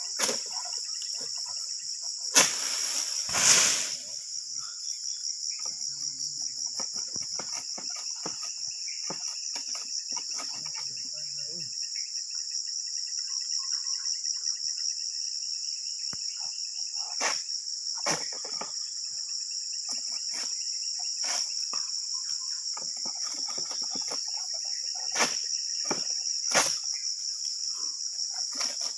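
Steady high-pitched insect chorus, with scattered sharp knocks and one louder rustling crash about three seconds in, from a long-handled pole sickle (egrek) being worked against the fronds of a tall oil palm.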